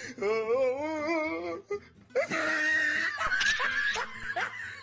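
Comedy sound effects: a warbling, wobbling tone for about a second and a half, then after a short gap a shrill burst and short bursts of laughter.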